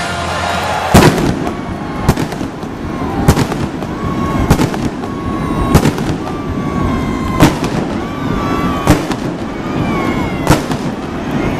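Indoor stadium fireworks going off: about eight sharp bangs, roughly one every second and a half, each echoing under the dome roof, with short whistling tones between them.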